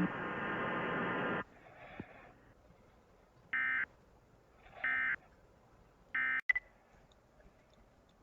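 Emergency Alert System tones: a steady buzzy tone cuts off about a second and a half in, then three short, raspy data bursts about 1.3 seconds apart, the end-of-message signal that closes an alert. A click follows just after the third burst.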